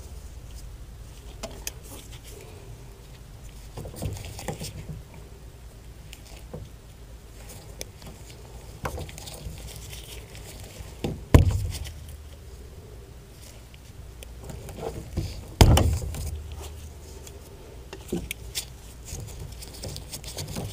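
Scattered small clicks and knocks of hands and wire strippers working on the air handler's blower wire leads, with two louder thumps, one just past the middle and another a few seconds later.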